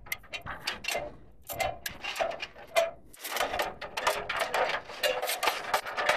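Irregular knocks and clicks of feet and hands on an aluminium ladder while climbing down it, with a few short pitched sounds mixed in.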